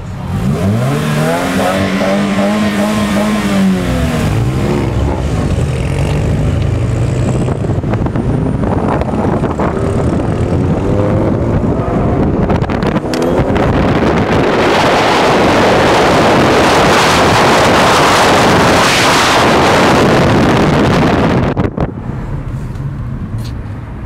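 Car engines revving and accelerating: the engine pitch sweeps up and falls back a couple of times in the first few seconds, then a long stretch of loud, steady engine and road noise from cars pulling away hard, which drops off sharply near the end.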